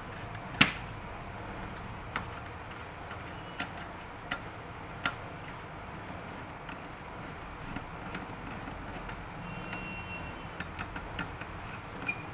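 Server parts being handled: scattered sharp clicks and knocks, one louder knock about half a second in and a quick run of small clicks near the end, over a steady low hum.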